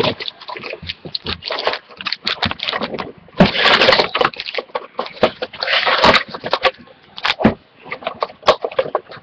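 Cardboard trading-card box and its card packs handled on a table: rustling, scraping and light taps as the box is opened and the packs are pulled out and set down, with two longer spells of rustling about three and a half and six seconds in.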